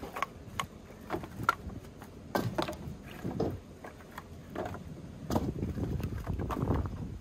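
Split firewood being stacked: pieces of wood knocking and clunking against each other in irregular, uneven knocks.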